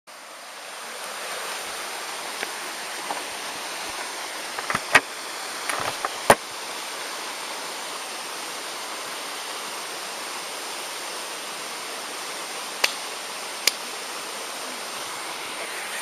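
Steady rushing of a small forest creek. Several sharp clicks cut through it around five to six seconds in, and two more near the end.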